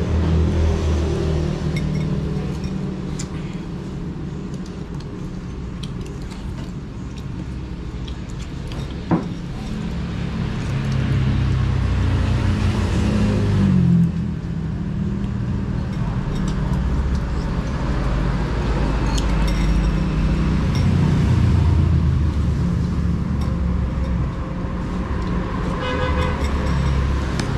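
Road traffic outside: vehicle engines running and passing in a continuous low rumble that swells and fades, loudest about halfway through. A single sharp click about nine seconds in.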